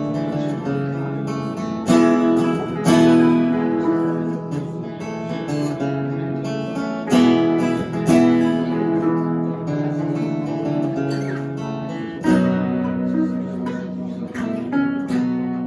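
Two acoustic guitars playing an instrumental passage of strummed chords, with a harder accented strum every few seconds.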